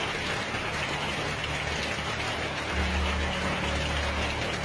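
Heavy rain pouring steadily, with a low rumble underneath that grows louder about three seconds in.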